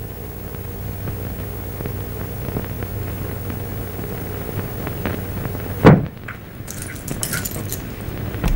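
Steady hiss and low hum of an old film soundtrack, with faint scattered clicks. A single loud thump comes about six seconds in, and after it the hiss turns thinner.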